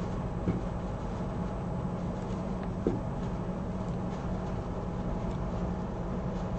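Steady low hum and hiss of background room noise, with a couple of faint clicks.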